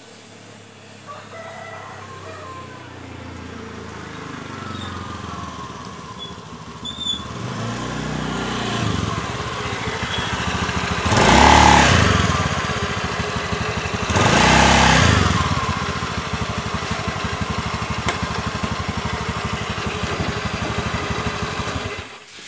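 Honda Beat ESP scooter engine running and being revved, with two loud revs in the middle, then running steadily. It has freshly fitted clutch shoes in place of worn-out ones, which had caused a clunking when pulling away.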